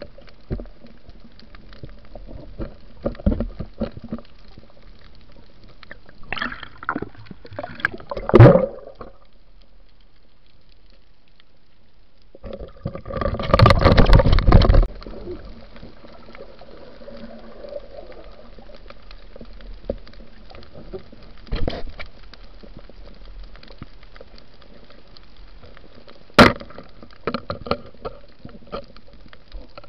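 Underwater sound from a diver's camera: water gurgling and bubbling with scattered clicks and knocks over a faint steady hum. About halfway through comes a couple of seconds of loud rushing bubbles and churning water.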